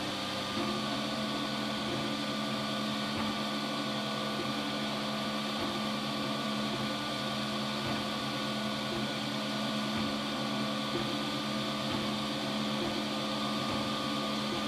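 Robo3D R1 Plus 3D printer running a print: its stepper motors give a steady whine of several tones that shift slightly as the head changes moves, over a constant hiss.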